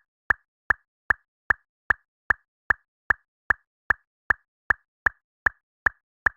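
An edited-in pop sound effect repeating at a steady pace, about two and a half short pops a second, with silence between them.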